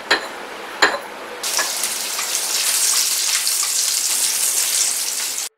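Food sizzling and frying in hot oil, with two sharp clicks in the first second; the sizzle grows louder about a second and a half in and cuts off suddenly near the end.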